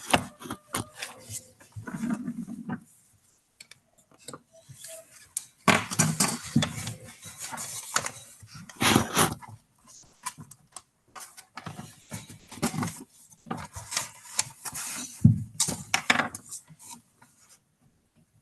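Irregular clattering and scraping of objects being handled, in clusters of clicks separated by short pauses.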